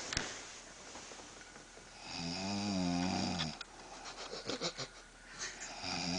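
A young woman snoring in her sleep: one low snore with a wavering pitch about two seconds in, lasting about a second and a half. A few small clicks follow, and the next snore starts near the end.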